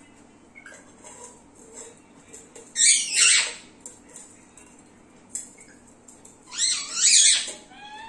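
Green parakeet calling: two loud, harsh, high calls, about three seconds in and again around seven seconds, each under a second long, with a few faint short chirps between.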